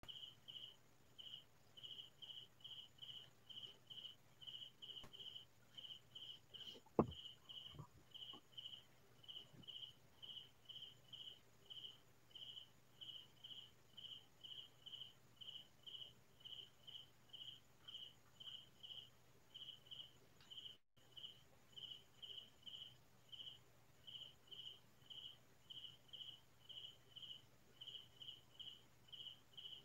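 Cricket chirping in a steady rhythm, short high chirps about two to three a second, with one sharp click about a quarter of the way in.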